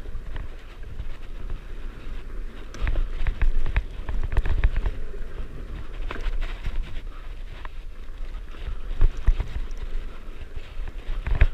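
Trinx VCT 1000 mountain bike ridden down a dirt berm trail: a steady low rumble from tyres and wind, with frequent rattles and knocks from the bike over the bumps.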